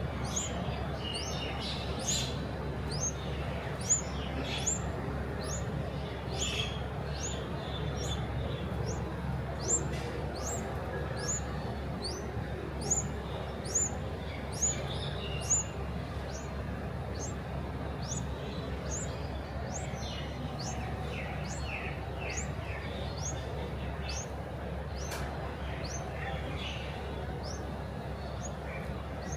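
Small bird chirping: a thin, high, rising note repeated steadily about once a second, with scattered lower chirps and a few louder ones in between.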